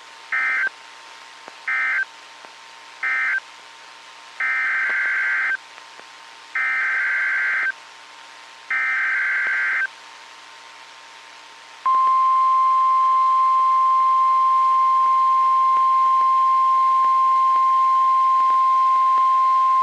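NOAA Weather Radio digital alert signalling. First come three short bursts of data squawks, the end-of-message code closing the previous warning. Then three longer data bursts, the SAME header announcing the next alert. About twelve seconds in, the loud, steady weather-radio warning alarm tone starts and holds on one pitch for about nine seconds.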